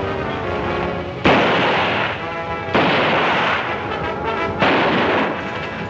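Three pistol shots about a second and a half apart, each trailing off in a long echo, over dramatic background film music.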